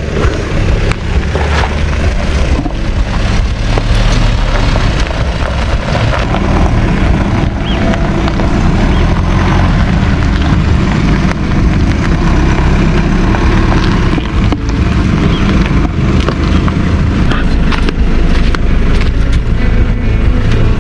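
GWM Cannon ute's diesel engine running with a steady low rumble as the ute sits and moves slowly on the dirt track.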